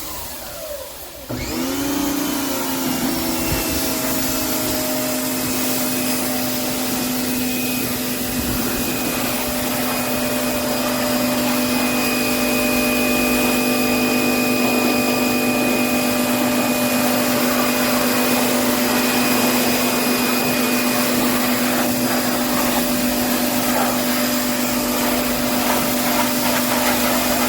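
Electric pressure washer motor and pump spin back up about a second and a half in, rising in pitch, then run steadily with a constant hum over the hiss of the water spray.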